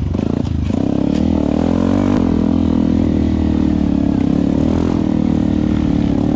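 Yamaha WR155R trail bike's single-cylinder four-stroke engine running steadily at a moderate pace. The throttle eases off and picks back up within the first second, and a few light knocks and rattles come in the first two seconds.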